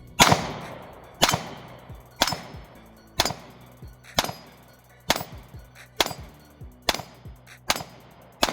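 Glock 43X 9mm pistol with Strike Industries parts firing slow, aimed single shots: about nine sharp reports, roughly one a second, each with a short ringing tail, as a magazine is emptied.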